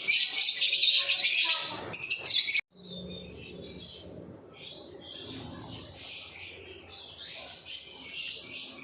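Lovebirds chirping and chattering together, many high calls overlapping. The loud chirping cuts off suddenly about two and a half seconds in and picks up again quieter.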